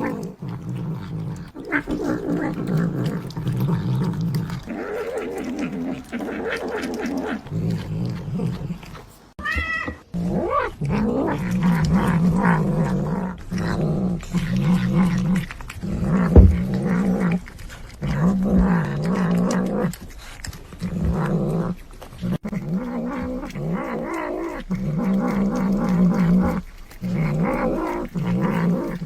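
Domestic cats growling and caterwauling at each other in long, wavering bouts, one after another, with a brief high cry about ten seconds in: the threat sounds of cats squabbling over food.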